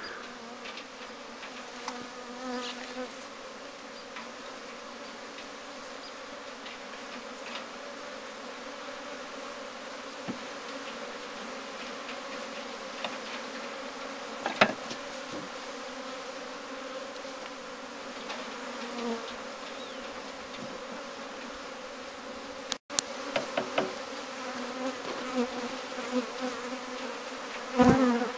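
A mass of honeybees from an opened hive buzzing in a steady drone while a frame of comb is held over a top bar hive. A single sharp knock sounds about halfway through, with a few fainter clicks around it.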